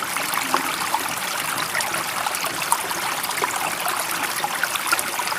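Running water: a steady, even rush with small bubbling, trickling flecks, like a flowing stream.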